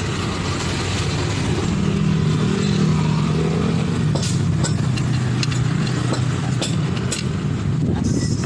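Small motorcycle engine running steadily, rising slightly in pitch around two seconds in, with scattered light clicks.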